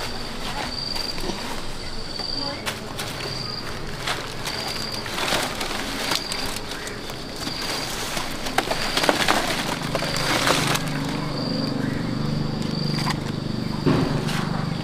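An insect chirps a short high note steadily, a little more than once a second, over rustling. From about eight seconds in, a plastic bag rustles loudly as persimmons are tipped out of it into a woven basket, the fruit tumbling against the wicker.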